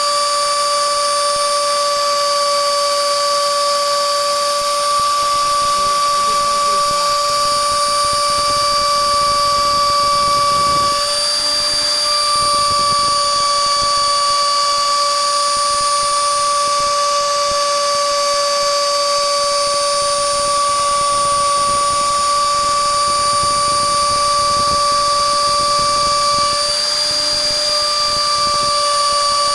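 CNC router spindle with a 6 mm end mill cutting wood, running with a steady high-pitched whine; the whine wavers briefly twice, about 11 seconds in and near the end.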